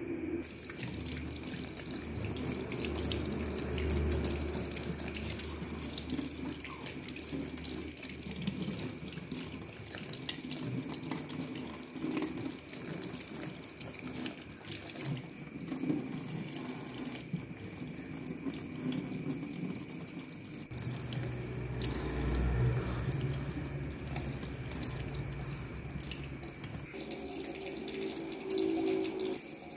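Kitchen tap running steadily into a stainless steel sink, the water splashing over hands being washed under the stream.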